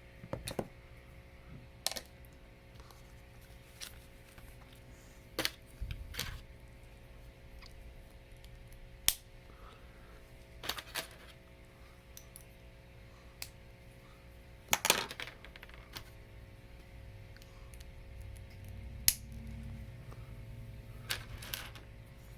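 Hard plastic Lego Hero Factory pieces clicking and clattering now and then, a dozen or so sharp separate clicks, as the figure is put together by hand. A faint steady hum runs underneath.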